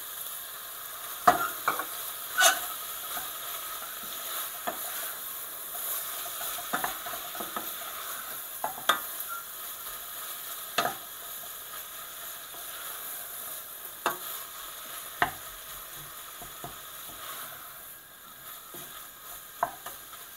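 Tuna and boiled potato cubes sizzling steadily as they fry in a stainless steel saucepan, stirred with a wooden spoon that knocks sharply and irregularly against the pan, loudest about a second and two and a half seconds in.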